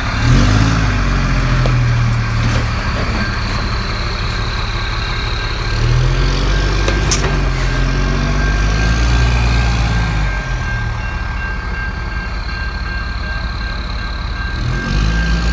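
Fire engine's diesel engine idling, a steady low hum that swells and eases as it is passed, with a thin steady high whine joining in a few seconds in.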